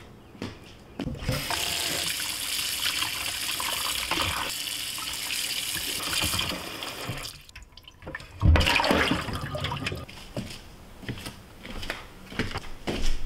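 Kitchen tap running into a sink while potatoes are rinsed by hand in a plastic colander, from about a second in until about seven seconds in. After a short pause there is a loud thump, then a few seconds of clatter and light knocks.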